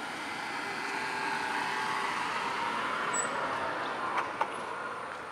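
Toyota 4Runner SUV driving past on a dirt road, its engine and tyre noise growing louder as it comes close and then fading as it moves off. Two short sharp clicks a little after four seconds in.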